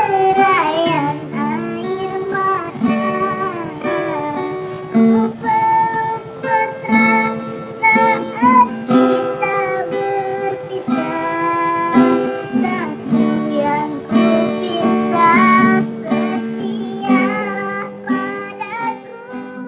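A voice singing a melody to a strummed guitar, the song fading out near the end.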